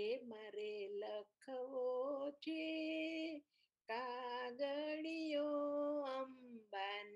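A woman singing unaccompanied: a slow melody of held notes, sung in short phrases with brief pauses between them.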